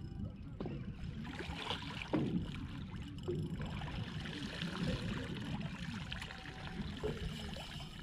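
Water lapping and sloshing against a boat's hull, with a low rumble of wind on the microphone and a few small splashes.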